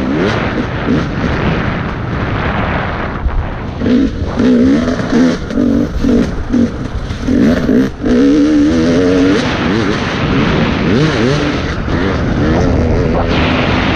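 Off-road dirt bike engine revving up and down as the rider works the throttle, with a run of short on-off throttle bursts in the middle and a rushing noise throughout.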